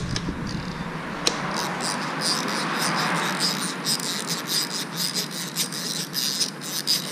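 Screwdriver working the two mounting screws of a four-stroke outboard motor's fuel cooler: a run of quick, light clicks over a steady hiss.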